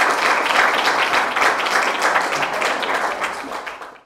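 Audience applauding, a dense steady patter of many hands clapping that fades away over the last second.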